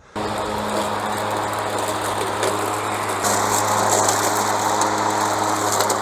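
Battery-powered remote-control mower running with a steady hum, its blade cutting into dry, standing stinging nettle stalks. The cutting noise gets louder and brighter about three seconds in.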